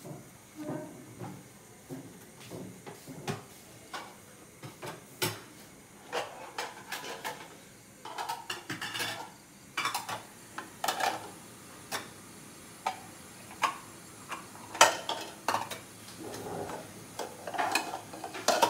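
Kitchenware clattering: pots, lids and utensils knocking and clinking at irregular intervals, with a few sharper clanks standing out.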